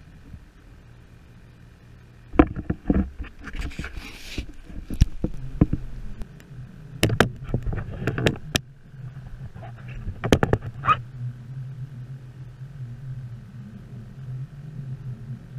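A paddle working a plastic sit-on-top kayak: irregular clusters of sharp knocks and short splashes as the paddle meets the hull and the water, starting a couple of seconds in and dying away near the end. A low steady hum lies underneath from about a third of the way in.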